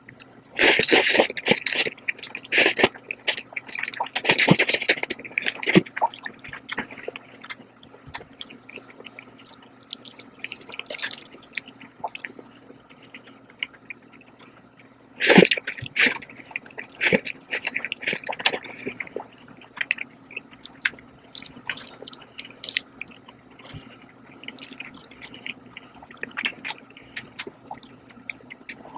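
Close-miked wet slurping of sauced jajang noodles in loud hissing bursts near the start and again about halfway, with wet chewing and lip smacks between.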